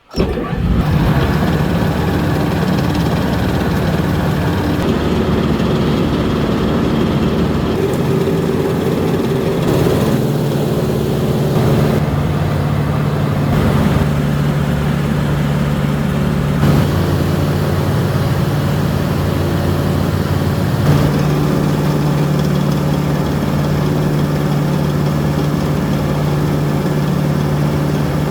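Rice milling machine starting abruptly and running steadily with a loud, even drone: a test run after its holed screen was repaired.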